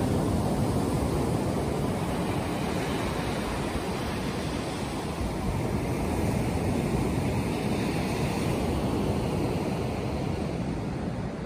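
Small sea waves breaking and washing up a sandy beach, a steady surf noise with gentle swells, with wind buffeting the microphone.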